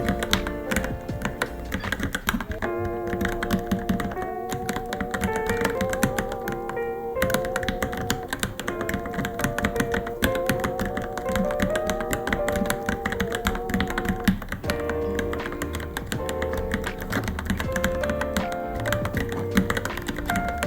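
Continuous fast typing on a Varmilo Minilo mechanical keyboard, a dense irregular clatter of keystrokes, over background music with a melody.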